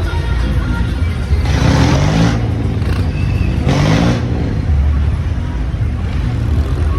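Tractor diesel engines running under heavy load over a steady low rumble, with two surges of revving whose pitch rises and falls, about a second and a half in and again near the four-second mark.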